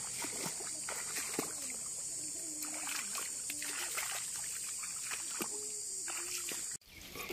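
Legs wading through shallow, muddy river water, with irregular sloshing and splashing as feet and a grabbing hand break the surface. Behind it runs a steady high-pitched insect drone, which cuts off suddenly near the end.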